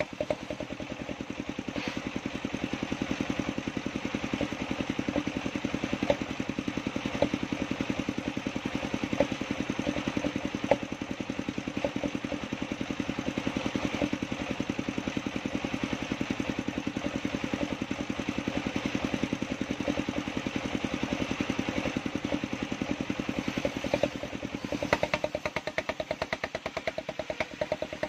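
Engine-driven circular sawmill ripping a long plank of waru timber: the engine runs with a fast steady beat under the hiss of the blade cutting through the wood. About four seconds before the end the cutting noise eases briefly and the engine's beat comes to the fore.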